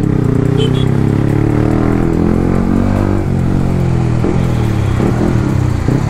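Onboard sound of a Yamaha R15's single-cylinder engine running in traffic, its pitch sinking slowly over the first three seconds as it eases off, then holding steadier, with road and wind noise.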